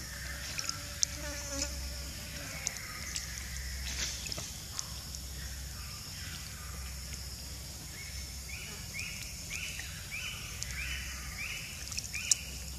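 Steady high-pitched buzzing of insects. In the second half a run of about seven short, matching call notes repeats about twice a second.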